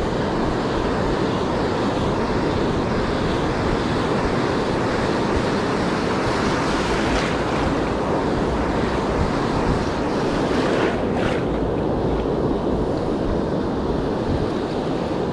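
Ocean surf washing steadily on the beach, with wind on the microphone.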